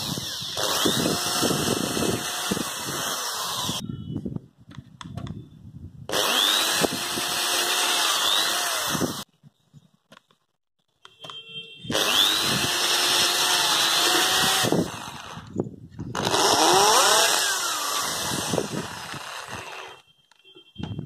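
Corded electric drills boring holes through a wooden plank with a twist bit. There are four runs of about three seconds each with short pauses between, and each starts with a rising whine as the motor spins up.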